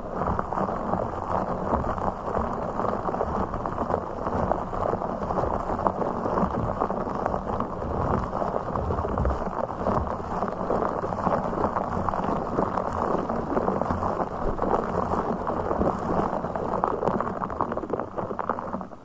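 A blue fish ASMR trigger handled right against the microphone, making a dense, continuous, muffled crackling rustle that cuts off abruptly near the end.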